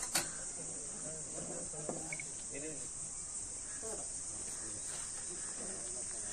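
Steady, high-pitched chorus of insects, with faint distant voices and two sharp clicks at the very start.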